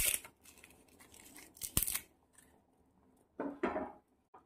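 Dry bay leaves being broken and torn by hand, giving a few brittle crackles and sharp snaps.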